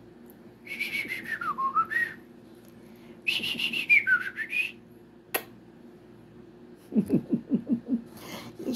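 A person whistling two short phrases a couple of seconds apart, each sliding down in pitch and back up. A single sharp click follows, then a quick run of low stuttering pulses near the end.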